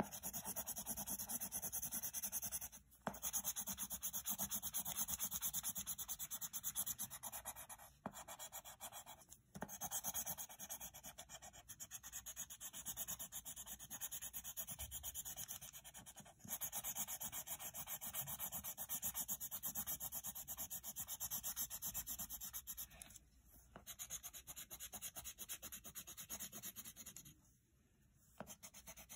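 Colored pencil scratching rapidly back and forth on notebook paper, shading in an area, in long runs broken by several short pauses.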